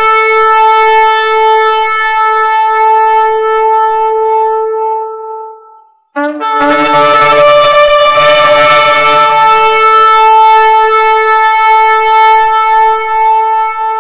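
A shofar (ram's horn) blown in two long held blasts. The first fades out about six seconds in, and after a brief break the second sounds and holds.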